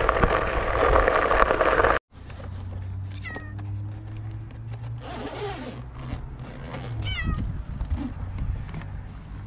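A cat meowing twice from inside a soft pet carrier, once about a second after a cut and again about four seconds later, over a low steady hum. Before that comes about two seconds of loud rushing noise that stops abruptly.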